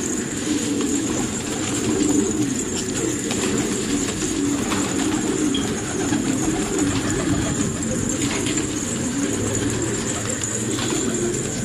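A large flock of domestic fancy pigeons cooing together in a dense, continuous chorus, with a few short wing flaps as birds take off and land among them.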